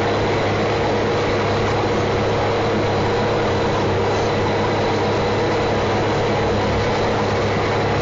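John Deere 540E log skidder's diesel engine running steadily, a constant low hum, heard from inside the operator's cab.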